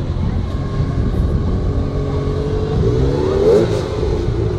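A Ferrari V8 engine running at low speed as the car pulls slowly past, with a short blip of revs that rises and falls about three seconds in.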